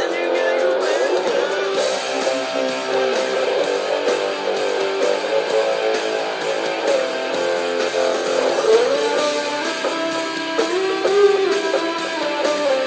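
Guitar playing a solo melody of single notes, with pitch bends about nine and eleven seconds in.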